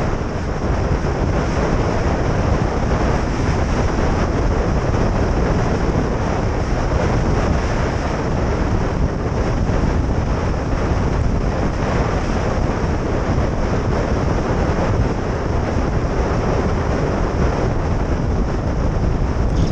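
Steady wind noise buffeting the microphone of a camera riding on a bicycle during a fast downhill descent.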